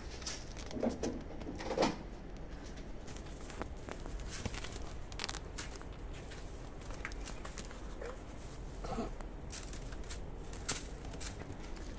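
Kitten claws scratching and catching on fabric trousers as the kittens climb a person's legs, heard as soft rustles with scattered light clicks and knocks.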